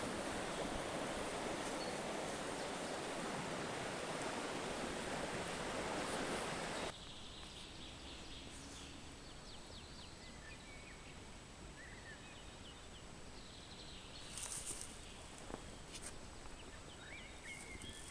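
Steady rushing outdoor noise that cuts off abruptly about seven seconds in. Then a quieter outdoor ambience with faint short bird chirps and a few small ticks.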